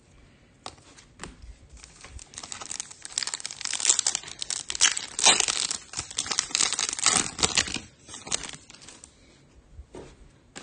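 Trading-card packaging being crinkled and torn by hand: a few light clicks, then a dense stretch of crinkling in the middle few seconds that fades near the end.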